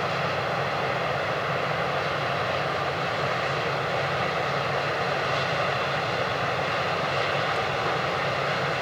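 Large farm machinery running steadily under load, with an even engine drone and the broad rush of the working machine.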